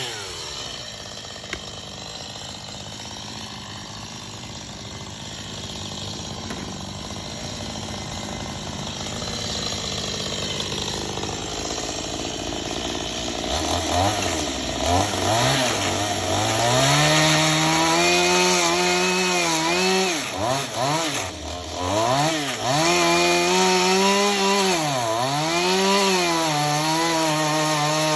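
Gas chainsaw cutting the tops off wooden posts. For the first half it runs lower and quieter. About halfway through, its engine starts revving up and down over and over, the pitch rising and falling with the throttle.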